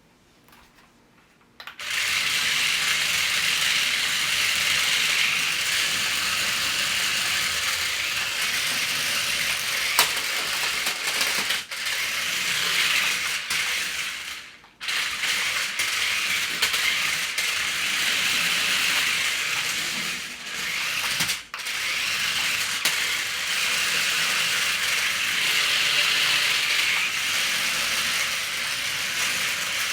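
Toy RC stunt car's small electric drive motors and plastic gearboxes running steadily as it drives, starting about two seconds in and cutting out briefly twice, about halfway through and again about two-thirds of the way through.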